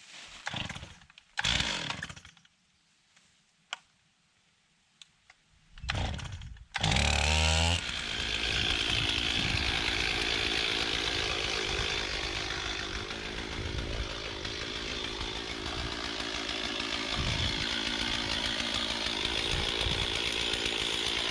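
Gasoline engine of a portable bandsaw sawmill starting up about seven seconds in, rising quickly in pitch, then running steadily and loud. Before it starts there are a few short knocks and handling sounds.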